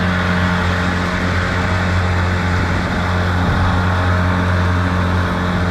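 Mercury tiller outboard motor running steadily with the boat underway at speed, a constant low drone over the rush of water from the wake.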